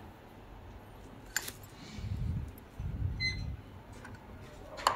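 Metal tweezers clicking against the pin header of a B75 motherboard, shorting the pins to discharge the board: a few sharp little clicks, about a second and a half in and again near the end, with dull handling bumps in between.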